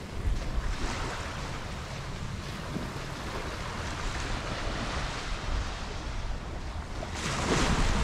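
Small surf breaking and washing up the beach, with a louder wash near the end. Wind buffets the microphone in a low rumble underneath.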